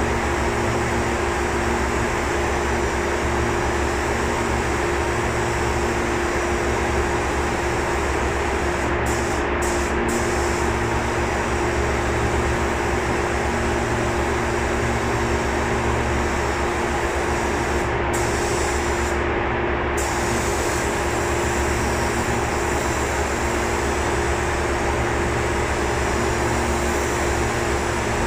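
Air spray gun hissing steadily as primer is sprayed onto the helicopter's aluminium underside, cutting out briefly about nine seconds in and again near eighteen seconds as the trigger is let off, over a steady mechanical hum.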